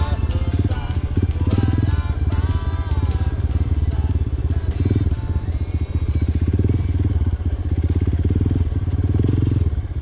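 Dirt bike engine running steadily as the bike is ridden along a trail, with rapid low pulses. Music with a melody plays underneath, most clearly a couple of seconds in.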